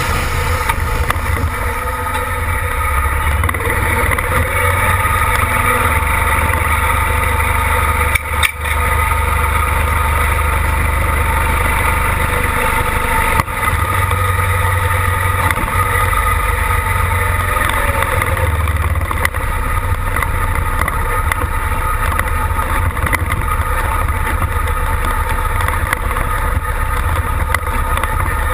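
Competition pulling tractor's engine running hard and steadily close ahead of the sled while it drags it, a continuous loud drone that dips briefly twice, about 8 and 13 seconds in.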